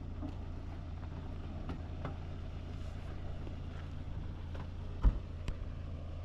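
Steady low engine drone, with a few faint knocks and one sharper thump about five seconds in.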